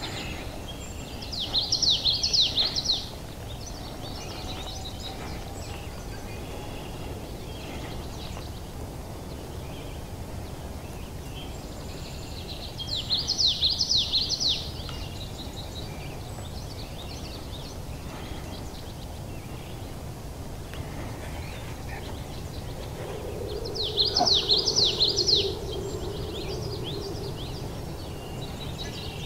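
A songbird singing the same short, high phrase of quick repeated notes three times, about ten seconds apart, over steady low outdoor background noise.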